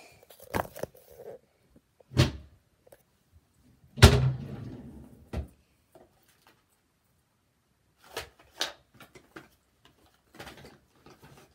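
A few knocks and thumps of things being handled and shut, the loudest about four seconds in with a short rumbling tail, then lighter clicks and knocks near the end.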